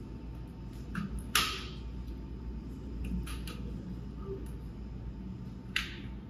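Clips on a pop-up backdrop frame being unclipped: a few sharp clicks, the loudest about a second and a half in and another loud one near the end, over a low steady hum.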